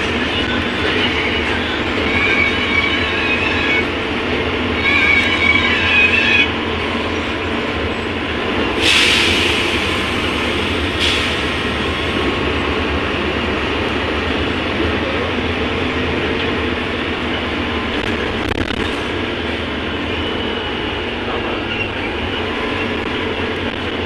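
Cabin noise of a moving city bus: steady engine and road rumble with rattling, high-pitched squeals during the first six seconds, and a sharp burst of hiss lasting about two seconds, about nine seconds in.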